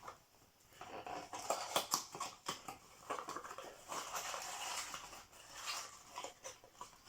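A numbered cardboard box of an advent calendar being opened and unpacked by hand: irregular rustling and crinkling of card and wrapping, with scattered small clicks and knocks.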